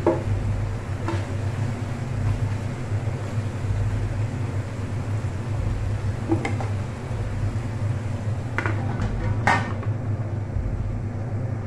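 Kitchenware clinks as a wooden spatula pushes sliced bitter gourd off a plate into an aluminium wok, with a few scattered knocks of utensil on pan. Near the end a stainless steel lid is set on the wok with a clink. A steady low hum runs underneath.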